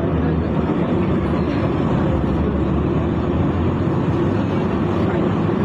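Steady, unbroken low rumble of vehicle noise.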